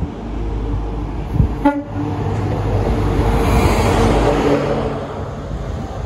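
Class 43 HST diesel power car 43192 gives a single short one-tone toot on its horn as it arrives. The rumble of the diesel engine and the passing coaches then swells and fades.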